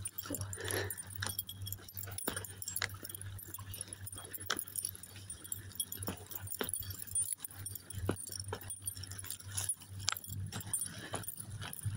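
A person walking on dry sand: irregular sharp clicks and soft crunches, roughly one or two a second, over a faint steady low hum.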